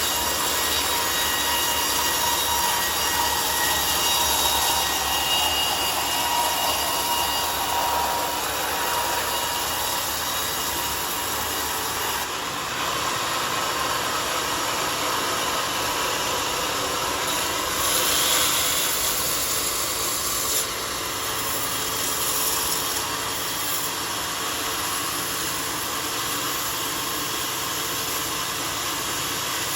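Homemade sawmill sawing a mahogany log: the blade running steadily through the wood, with the machine's motor running underneath, and the sound briefly getting louder about two-thirds of the way through.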